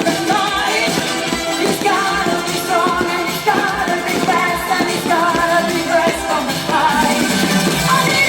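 Pop music with singing over a steady beat.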